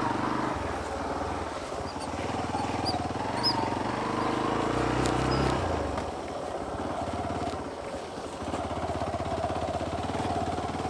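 Hero XPulse motorcycle's single-cylinder engine running, its pitch rising about four seconds in and easing off again around six seconds. A few faint bird chirps sound over it early on.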